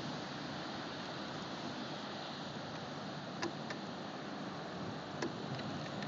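Steady hiss of wind and water on open sea, with a few short clicks a little past halfway and again near the end.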